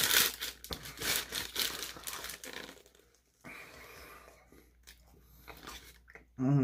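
Paper wrapper of a shawarma wrap crinkling and rustling as it is gripped and bitten into, loudest in the first three seconds, then quieter chewing.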